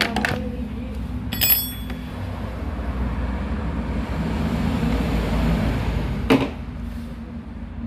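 Metal hand tool clinking and knocking against the housing of a Bosch GSH 16-30 demolition hammer while its carbon-brush caps are worked on. There is a short ringing metallic clink about a second and a half in and a sharp knock a little after six seconds, over a steady low mechanical rumble.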